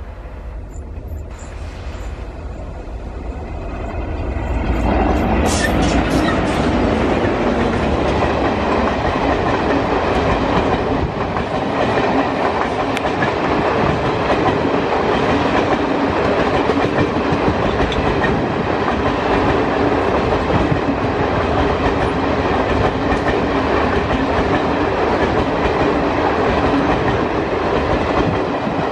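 WAP-4 electric locomotive and its Garib Rath Express coaches passing at speed. A rumble swells as the locomotive nears, with a brief clatter as it goes by about five seconds in. Then comes a steady loud rush of the coaches' wheels on the track.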